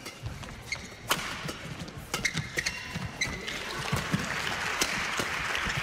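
Badminton doubles rally: a quick string of sharp racket strikes on the shuttlecock and players' shoes squeaking on the court, with crowd noise swelling over the last couple of seconds.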